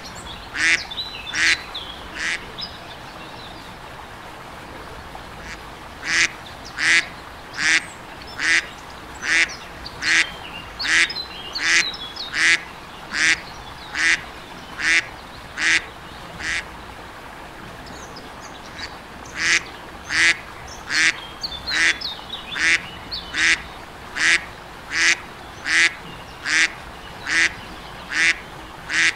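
A duck quacking in long, evenly spaced runs of single quacks, a little over one a second. The calling breaks off for a few seconds about two seconds in and again about two-thirds of the way through.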